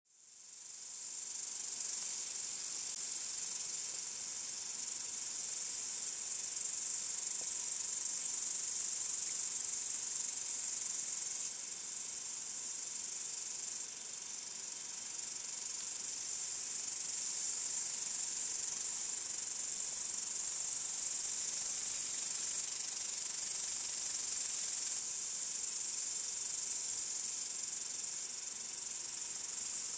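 Steady, high-pitched chorus of field crickets, fading in over the first second and then continuous.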